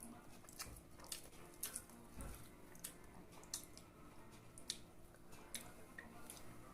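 Faint close-up eating sounds: wet chewing and mouth clicks, scattered irregularly.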